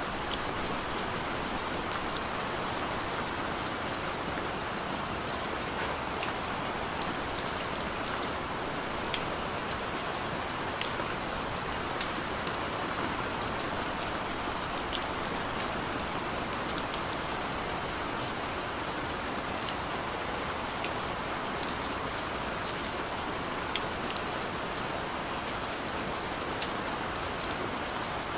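Steady rain falling, a constant hiss with many individual drops ticking sharply on a surface.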